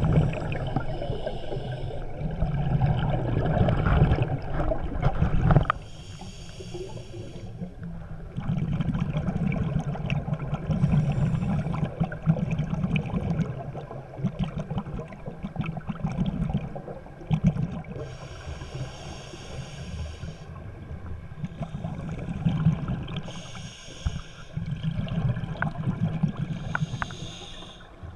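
Scuba breathing heard underwater through a diver's regulator. A low, gurgling rumble of exhaled bubbles alternates every few seconds with a shorter, higher hiss of inhalation, in about six breaths.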